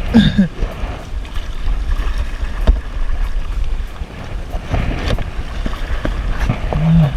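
Wind buffeting the microphone as a deep steady rumble, over water noise around a kayak, with scattered light knocks and clicks.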